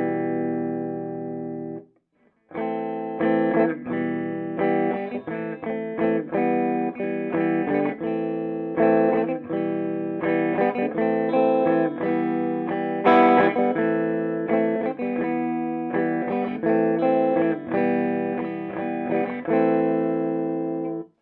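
Electric guitar played through a Peavey Bandit 112 TransTube combo amp on its clean channel: a held chord that cuts off about two seconds in, then after a short gap a run of chords and picked notes that stops abruptly near the end.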